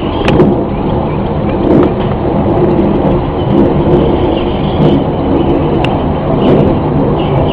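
A loud, continuous low rumbling drone with steady humming tones in it, the unexplained 'strange sound' being recorded. A few faint short clicks are scattered through it.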